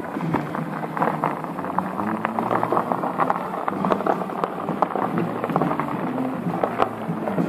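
Crowd of people walking on a dirt and gravel road: dense, continuous crunching footsteps, with a low steady hum underneath through the middle.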